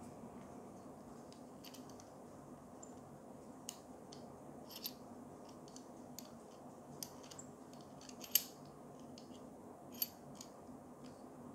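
Scattered small clicks and ticks of metal and plastic parts as a super clamp is handled and its T-handle screw turned, over a faint steady background hum. The loudest click comes about eight seconds in.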